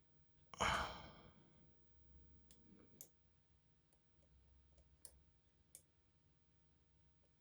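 A sigh about half a second in, followed by a few light, sparse clicks of lock picks working inside an Adamant pin-tumbler lock.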